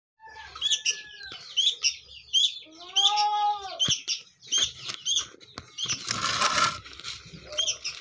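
Caged sooty-headed bulbuls giving repeated short, sharp chirps about twice a second. A longer rising-and-falling call comes about three seconds in, and a brief flurry of wing flapping comes about six seconds in.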